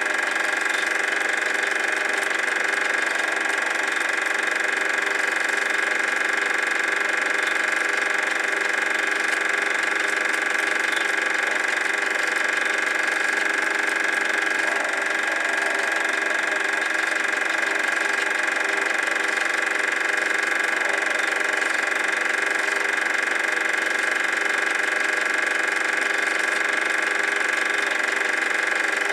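Super 8 film projector running with a steady mechanical whir and a high whine.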